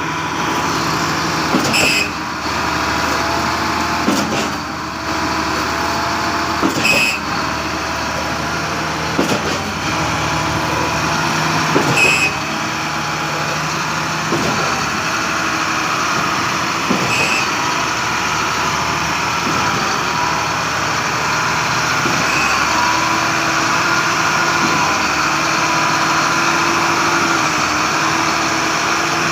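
Concrete pump truck running under load while pumping water: a steady engine and hydraulic drone, with a sharp knock about every five seconds in the first two-thirds, typical of the pumping cylinders and valve changing stroke.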